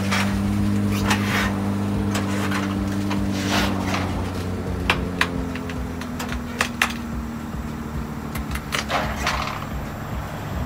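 Low steady engine hum as a car is driven slowly down a car hauler's steel ramp, with scattered sharp clicks and knocks from the ramp.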